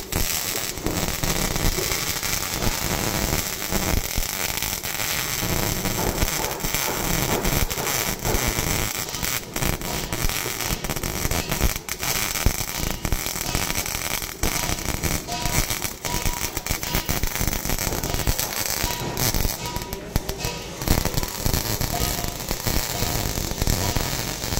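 CO2 MIG welding arc crackling steadily with a dense run of sharp pops and spatter as a bead is laid on steel.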